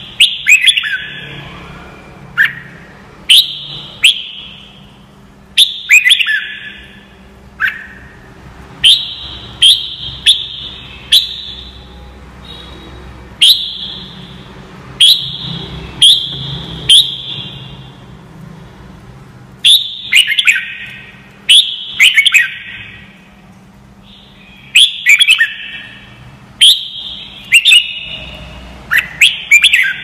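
Red-whiskered bulbul singing: short, loud phrases of a few quick, falling whistled notes, repeated every second or two with brief pauses between them.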